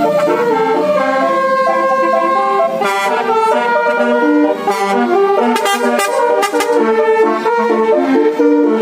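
Multi-tone "basuri" telolet horn on a convoy vehicle playing a tune, its notes stepping quickly up and down with several tones sounding together. A few sharp clicks come around the middle.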